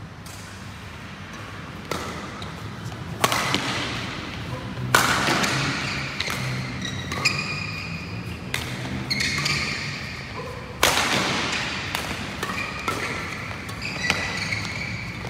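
Badminton rally: rackets striking the shuttlecock in sharp cracks every second or two, each ringing briefly in a large hall, with short high squeaks in between.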